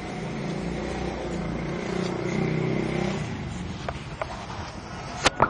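A motor vehicle passing in street traffic, its steady engine hum swelling and then fading, with a few sharp knocks near the end.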